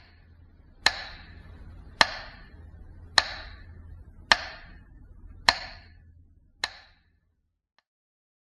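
Slow, evenly spaced metronome ticks, six in all a little over a second apart, over a faint low hum; the ticking stops after the sixth beat.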